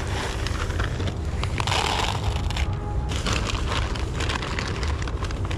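Footsteps crunching on dry grass and a plastic bag rustling in the hand, over a steady low rumble.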